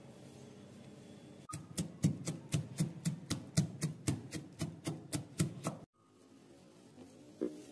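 Roasted peanuts being pounded in a mortar with a pestle: about four dull, even strikes a second for roughly four seconds, starting and stopping abruptly. Quiet room tone comes before and after, with a single light knock near the end.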